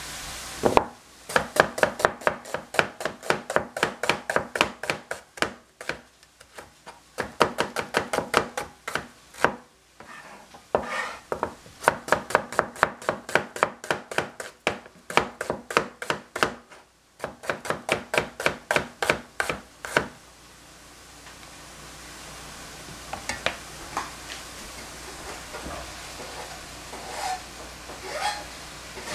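Chinese cleaver slicing through an onion onto a thin plastic cutting board: quick, even chops about four or five a second, in four runs with short pauses, stopping about two-thirds of the way through. After that a faint steady hiss of onions sizzling in the pan on low heat, with a few light knocks.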